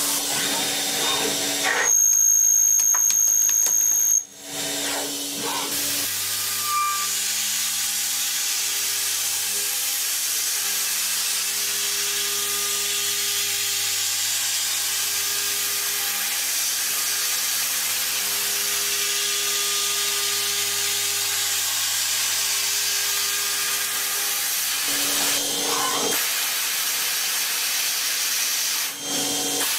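CNC vertical machining centre cutting an aluminium block: a steady hiss of coolant spray over the spindle's steady low hum. About two seconds in there is a louder stretch with a high steady whine that cuts off suddenly, and the sound shifts again near the end as the tool changes to drilling.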